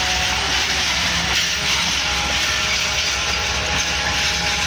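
Pakistan Railways passenger coaches rolling past: a steady, loud rumble and rush of wheels on rail.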